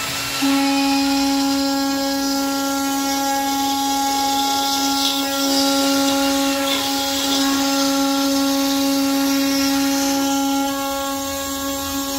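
CNC router spindle running with a steady high-pitched whine as its small end mill cuts grooves into a wooden board, with a hiss of cutting over it. The whine sets in sharply about half a second in and holds at one pitch.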